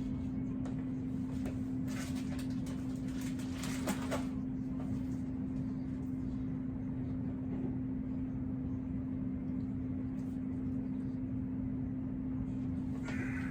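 Kitchen handling noise: rustling and light clattering about two to four seconds in, over a steady low hum.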